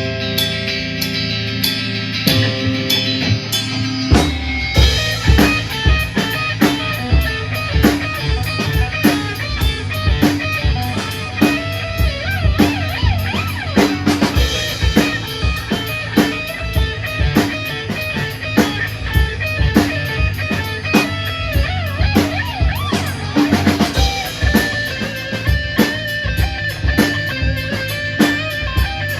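A rock band playing together, guitar-led for the first few seconds. Then the full drum kit comes in about four seconds in, with steady kick and snare hits under guitar and bass.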